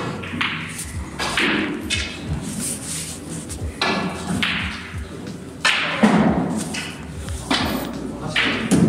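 A run of dull thuds and knocks at irregular intervals, about one every second or two, some with a short ringing tail.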